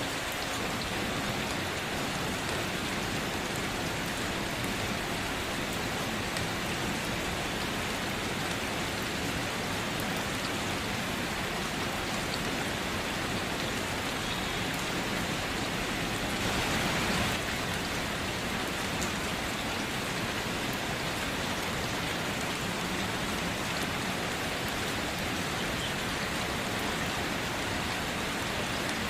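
Steady rain falling, an even dense hiss of drops, with one brief louder swell a little past the middle.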